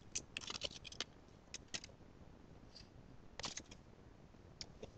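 Faint, scattered clicks and rustles of small objects being handled by hand, coming in a few short clusters.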